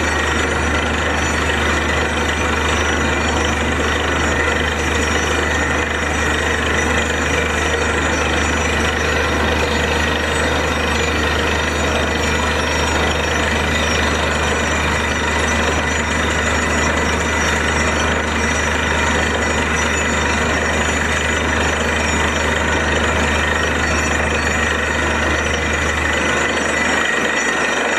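Borewell drilling rig running steadily: the rapid hammering of the drill at work over the drone of the rig's engine and compressor. The low drone eases off just before the end.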